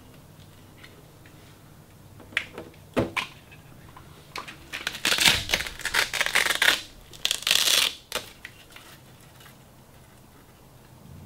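Handling noise: a few sharp clicks and knocks, then about three seconds of dense rustling and crinkling, over a faint steady low hum.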